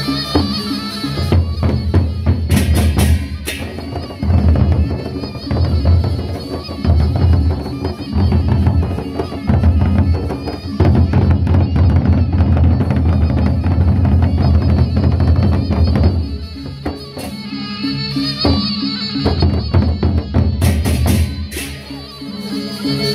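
Gendang beleq ensemble playing: the big Sasak double-headed drums beat a dense, heavy rhythm, with hand cymbals clashing among them. Near the start and end the drumming thins and steady held tones come through.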